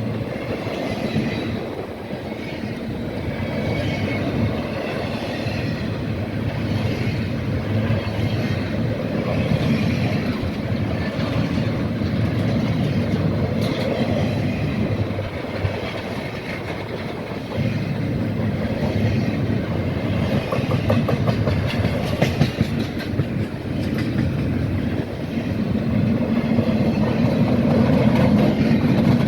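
Freight train rolling past, its cars clattering steadily over the rails and getting a little louder near the end.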